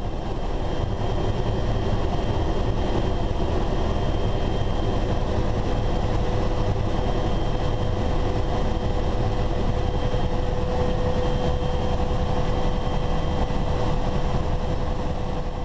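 Helicopter in flight heard from inside the cockpit: a steady, loud rumble of engine and rotor with thin steady whining tones over it.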